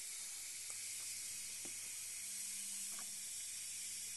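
Steady hiss of corona discharge from the Zenith 25MC36 colour TV's high-voltage section, over a low hum, with a few faint ticks. The high voltage appears to be running too high with the solid-state rectifier, or its regulation is not working.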